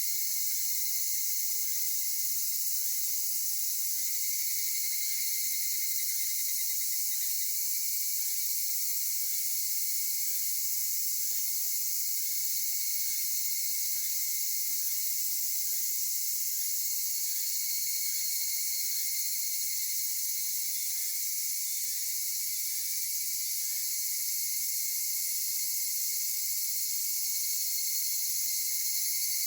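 Dense chorus of cicadas, including higurashi (evening cicadas), a steady high-pitched shrill that holds without a break.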